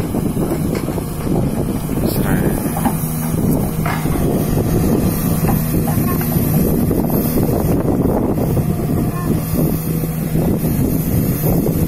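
Sumitomo SH210 hydraulic excavator's diesel engine running under load as it digs and lifts a bucket of soil, with a steady hum that comes in about three seconds in. Wind on the microphone adds a rushing noise.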